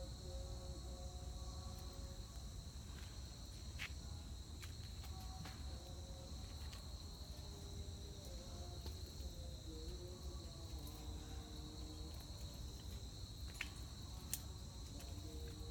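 Insects chirring steadily in one continuous high, even tone, with a few faint clicks.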